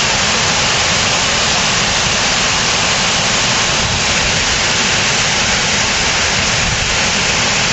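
Waterfall on the Ottauquechee River: a steady, loud rush of falling water that does not change.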